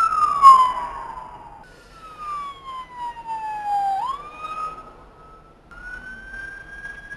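Emergency vehicle siren wailing in long, slow falls in pitch, with a quick rise about four seconds in, a held tone, then another slow rise near the end. A brief sharp click about half a second in.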